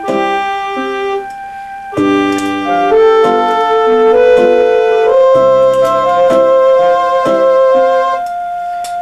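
Electronic home organ keyboard played slowly: a simple tune of held, steady notes with accompanying chords, the notes changing every half second or so.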